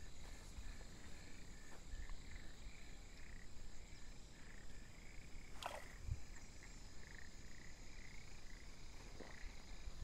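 Wetland ambience: a chorus of frogs giving short repeated notes, about two to three a second, over a steady high insect hum. About six seconds in, a single call sweeps quickly downward.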